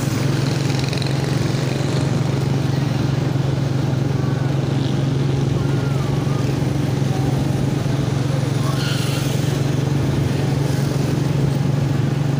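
Vehicle engine running steadily on the move, a constant low drone under wind and road noise on the microphone.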